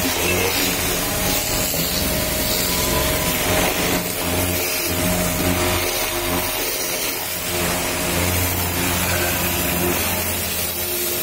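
Pressure washer running, its motor and pump humming steadily while the water jet sprays against a car's body panel and wheel.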